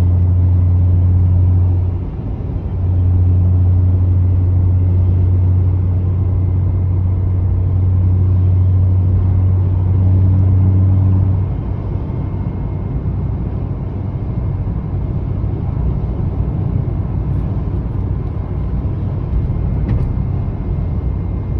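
Car cabin noise at highway cruising speed: a loud, steady low drone with engine and road rumble. The drone breaks off briefly about two seconds in and fades about halfway through, leaving a steadier low rumble.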